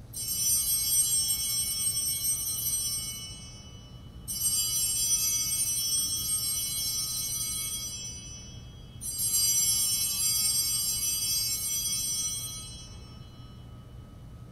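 Altar bells (Sanctus bells) rung three times for the elevation of the chalice at the consecration. Each ring is a bright jingle of several bells that starts sharply and dies away over three or four seconds.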